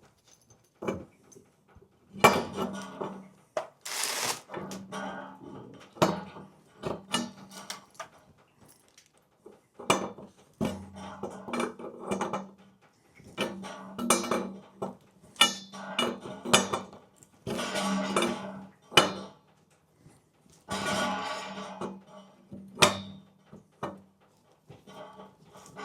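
Irregular metal clanks, clicks and scrapes of a wrench and pipe fittings as the drain line on a water heater's pressure relief valve is tightened.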